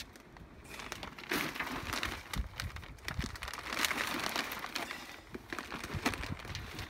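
Black plastic sack crinkling as loose compost is shaken out of it into a pot, the compost rustling as it pours, with many small crackles. It starts about a second in and is loudest through the middle.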